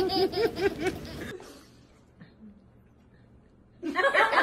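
A young child laughing in quick repeated bursts for about a second and a half, then near quiet, then a baby starts laughing hard near the end.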